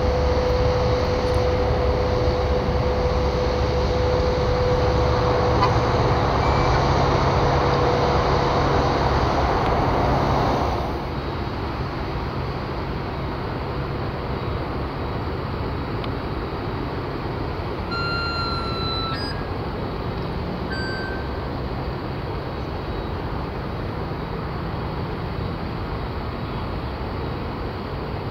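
Boeing 777-300ER's GE90 turbofan engines running as the airliner moves along the runway, a steady jet rumble with a whine over it. About 11 seconds in the sound drops abruptly to a quieter, steady engine rumble.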